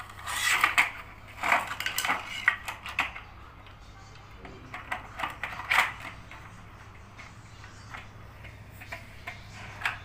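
Clicks and clatter of a washing machine's plastic control-panel housing and circuit board being handled and worked with a metal screwdriver. The knocks come in irregular bunches through the first three seconds and again around five to six seconds, with a last one near the end.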